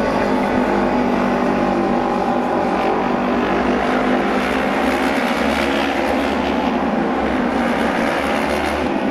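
Japanese autorace racing motorcycles (600 cc twin-cylinder engines) running at speed around the oval, more than one engine at once, a steady loud drone whose pitch rises and falls a little as they go through the bends.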